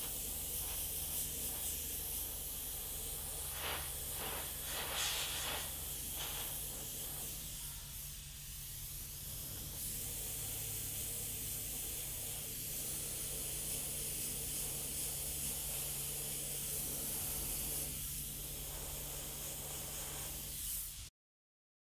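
Gravity-feed airbrush spraying paint: a steady air hiss that swells and eases in strength, over a low steady hum. It cuts off abruptly near the end.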